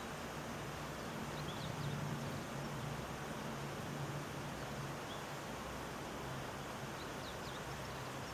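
Steady outdoor background noise with a low hum, and a few faint bird chirps in two short groups, one a little over a second in and one near the end.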